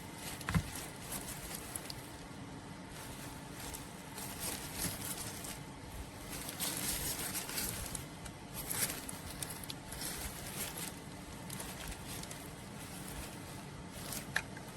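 Aquarium sand waterfall running: sand and water trickling with an uneven hiss that swells and eases, over a steady low hum.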